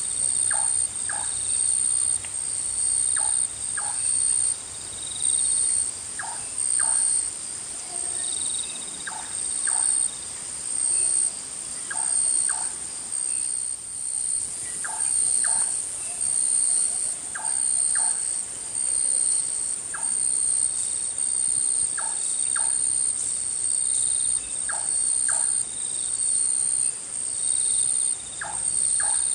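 Tropical forest insects at night, a steady high chirring that swells and fades about once a second. Over it, a short two-note animal call repeats every two to three seconds.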